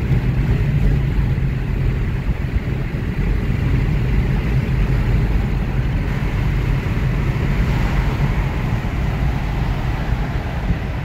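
Dodge Charger Hellcat's supercharged 6.2-litre Hemi V8, catalytic converters deleted, running with a steady low rumble while driving, heard from inside a car alongside over road noise.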